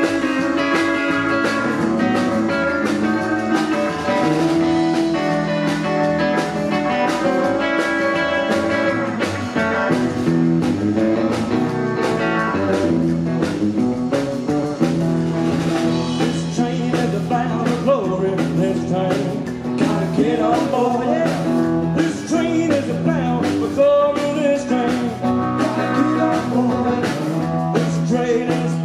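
Live rockabilly band playing an up-tempo number: electric guitar over upright double bass and a drum kit keeping a steady beat.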